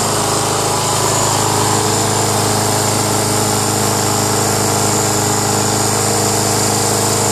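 Yard-Man self-propelled lawn mower's 6.75 hp Briggs & Stratton single-cylinder four-stroke engine running steadily, just after starting right up on fresh oil and gas.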